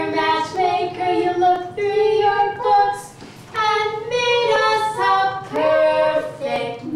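A girl and a woman singing a song together, in sung phrases with held notes and a short break about halfway through.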